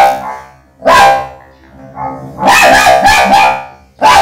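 Dog barking, the barks electronically processed into a robotic, buzzy voice: one bark about a second in, a quick run of several barks midway, and another bark at the end.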